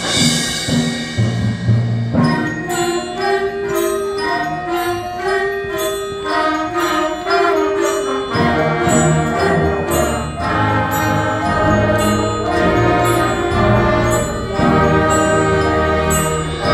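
Middle school concert band playing a holiday piece: winds and brass with repeated bright, ringing bell-like percussion strikes. A fuller low brass part comes in about halfway through.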